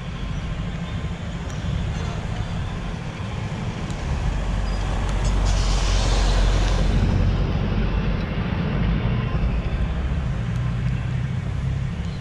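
Traffic noise heard from a moving bicycle: a steady low rumble of wind on the microphone, with a passing motor vehicle swelling into a loud hiss about five seconds in and fading away by about seven seconds.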